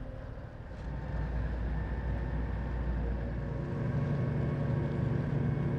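A boat's engine running with a steady low drone that grows a little louder in the second half.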